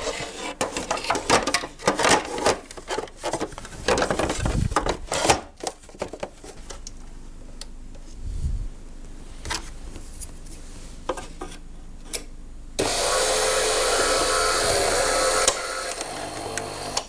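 Clicks and knocks of parts being handled and fitted on a Saeco Vienna espresso machine. Then the machine starts a motor, a steady whirr for about three seconds that cuts off suddenly, leaving a faint low hum.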